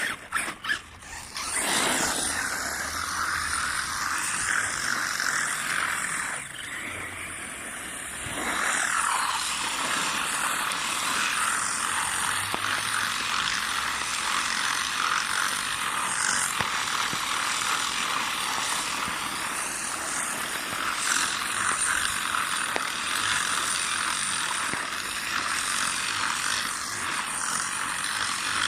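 A 1/8-scale electric RC buggy with an Arrma Nero brushless motor doing donuts: motor and drivetrain whine mixed with the scrub of spinning tyres. It builds up over the first two seconds, eases off briefly around six seconds in, and picks up again about eight seconds in.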